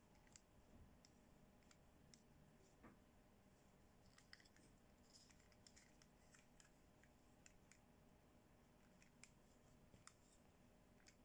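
Very faint, irregular small clicks and rustles from hands working a pink plastic toy hair iron through a doll's hair.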